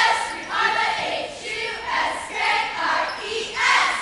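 Squad of cheerleaders chanting a cheer in unison, in rhythmic shouted syllables about two a second, loudest just before the end.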